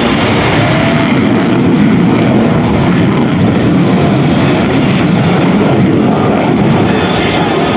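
Loud rock music with electric guitar over public-address loudspeakers, mixed with the steady noise of the F-22 Raptor's twin F119 turbofan jet engines.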